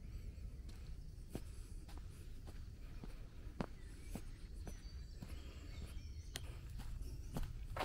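Footsteps on a dirt forest path, a short crunching step every half second to second at walking pace, over a steady low rumble.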